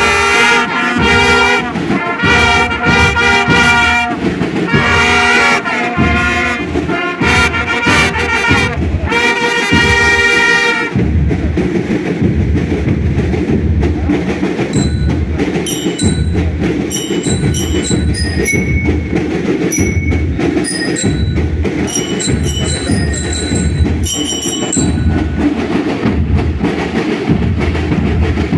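School marching band playing in the street: brass horns, trumpets among them, play a tune over drums for about the first eleven seconds. Then the brass stops and the drums keep the beat with a few short high notes, until the brass comes back in at the very end.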